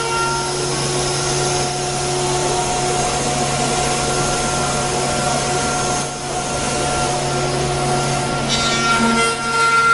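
CNC wood router's spindle running at a steady high whine while its bit cuts a curved wooden door part, with the rasping of the cut mixed in. A brighter hiss joins near the end.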